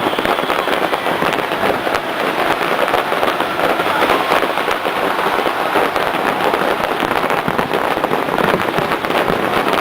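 Fireworks display going off in a continuous, rapid barrage of bangs and crackles, with no pause.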